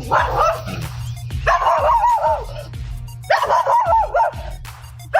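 A dog barking in quick runs of short, high yaps, over background music.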